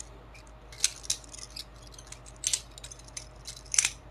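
Balisong (butterfly knife) being rotated around the finger: light metallic clicks and clacks of the handles and blade swinging and knocking together, a few at a time at irregular intervals.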